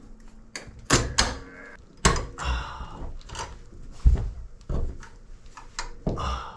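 Vise grips (locking pliers) twisting old galvanized screws out of the chain locker's wooden boards: a string of irregular knocks and clunks of the steel tool against the wood, about six in all.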